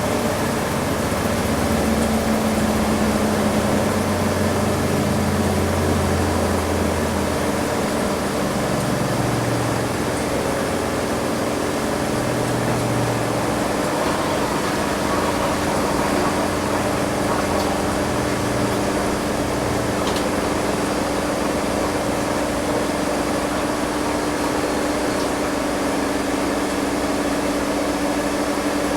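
Front-loading washing machine in its spin cycle: a steady motor whine over a low hum, with the drum's low rumble shifting in pitch through the first half.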